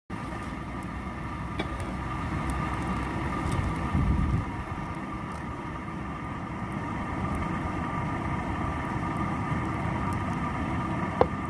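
Blower-fed forge fire heating an iron wheel tyre: a steady rushing burn with a faint mechanical hum under it, a brief louder low rumble about four seconds in, and a sharp click near the end.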